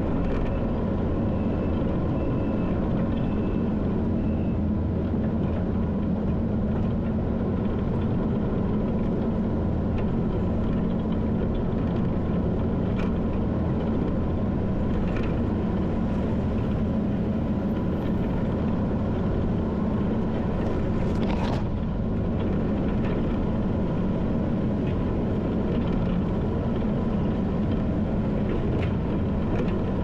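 Skid steer engine running steadily under work, with a few brief knocks.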